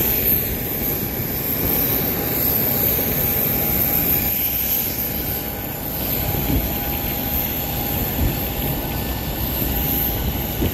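Steady jet whine and rumble from a parked Ryanair Boeing 737 on the apron: a high, even whine over a low, noisy rumble.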